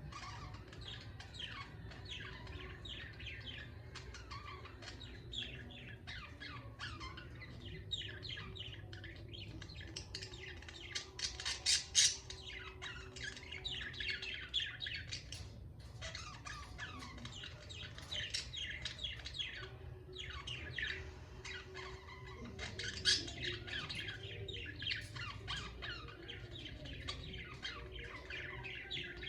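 Pet budgerigars chattering: a continuous stream of rapid chirps and warbles, with louder bursts of calls about halfway through and again near the end, over a steady low hum.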